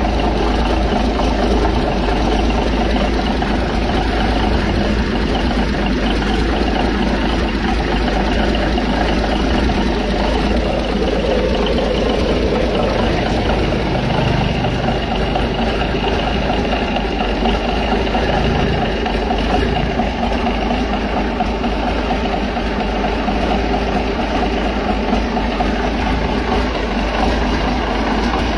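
A large diesel engine idling steadily on its starting test, running evenly without any change in speed.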